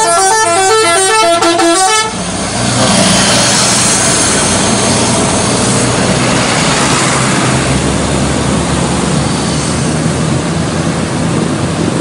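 Bus telolet horn, a multi-tone musical horn on a coach, playing a fast run of short notes that cuts off about two seconds in. Then the loud, steady engine and road noise of coaches passing close by.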